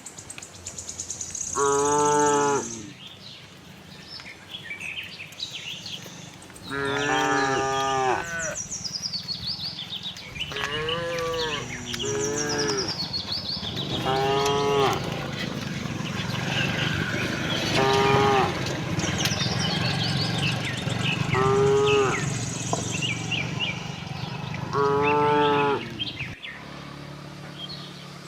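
Cows mooing, about eight separate moos spaced a few seconds apart, some drawn out over a second or more. Small birds chirp steadily in the background.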